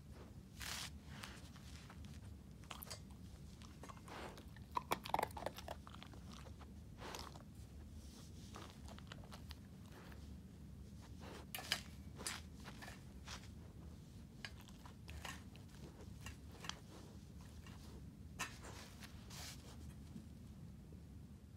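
Puppy chewing dry kibble picked up off the carpet: sharp, irregular crunches in scattered clusters, with a run of several bites about four to six seconds in.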